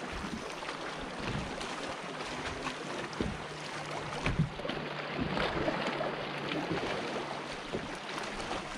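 Water lapping against a small fishing boat's hull with wind on the microphone, scattered small knocks, and a faint steady low hum through the middle.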